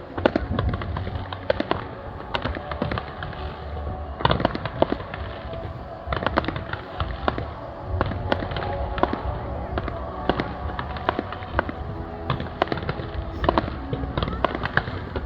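Fireworks going off in a dense display: many sharp bangs and crackles in quick, irregular succession over a steady low rumble.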